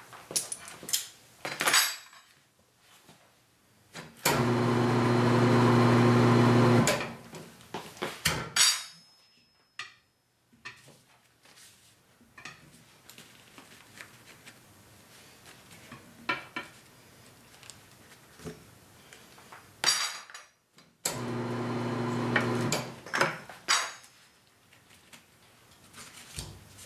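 Harbor Freight 67517 semi-automatic tire changer's electric turntable motor running twice for a couple of seconds each, a steady hum as it turns the wheel to work the run-flat tire's bead. Between the runs come metal clanks and knocks from the tire bar and the machine.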